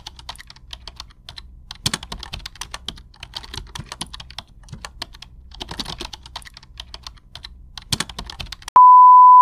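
Computer keyboard typing sound effect: quick, irregular key clicks. Near the end the clicks stop and a loud, steady beep sounds for about half a second.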